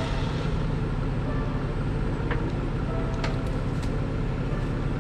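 Jeep Gladiator's engine idling steadily, with a few faint clicks about two to four seconds in.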